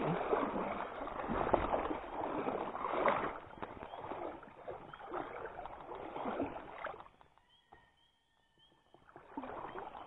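Legs wading through shallow stream water, sloshing and splashing with each step. It stops about seven seconds in and starts again near the end.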